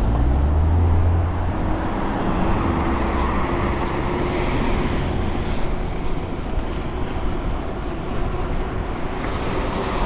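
Riding noise from an e-bike under way: wind on the microphone and road noise, loud and steady, with a faint steady hum underneath and a deeper hum in the first second or so.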